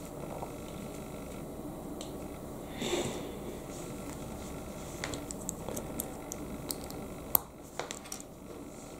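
Small plastic Lego bricks handled and pressed together: scattered light clicks and taps, with one sharper click about seven seconds in, over a faint steady room hum.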